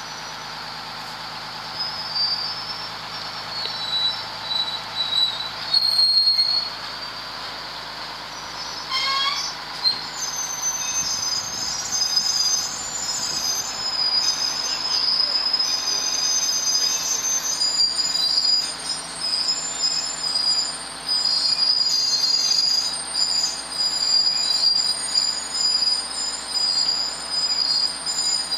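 High-pitched, wavering metal-on-metal squealing from a lattice-boom crane lowering a sailboat on slings, over a steady low hum. The squealing grows louder and busier about a third of the way in.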